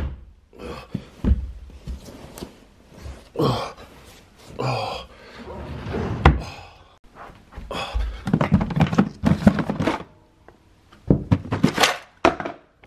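Wooden drawers being pulled open and pushed shut while hands rummage through folded clothes and toys: irregular thuds and knocks mixed with rustling.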